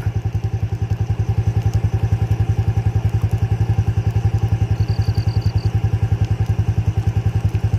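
A small engine idling with a quick, even pulse of about eleven beats a second, steady throughout.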